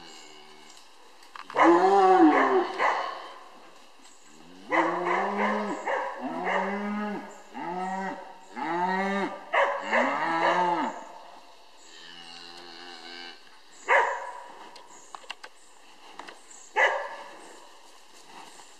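Scottish Highland cattle mooing, a run of about six calls that each rise and fall in pitch. Near the end a dog, a Westerwälder Kuhhund, barks sharply twice.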